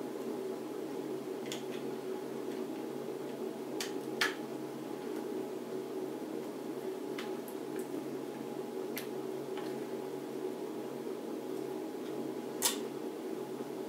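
Scattered light clicks and taps from a stock Intel CPU cooler being fitted onto a motherboard, with two sharper clicks about four seconds in and near the end, over a steady low background hum.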